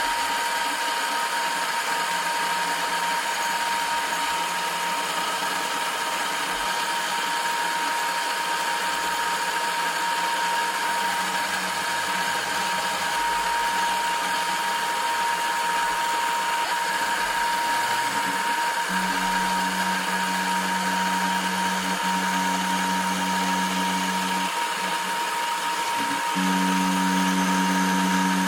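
Manual milling machine running steadily with a constant high whine. A deeper hum joins twice in the second half.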